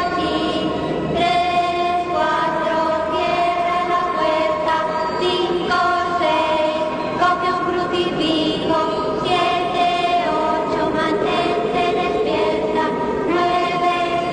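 Music intro: a slow melody of held sung notes, choir-like voices, without a beat.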